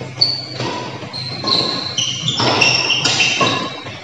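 Badminton players' shoes squeaking in short high chirps on the court floor during a rally, with a sharp hit about a quarter second in, typical of a racket striking the shuttlecock.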